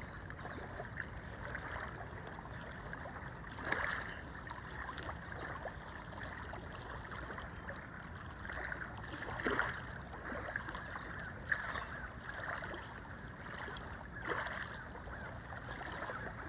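River water lapping against a rocky bank: a steady wash with a few louder laps and splashes.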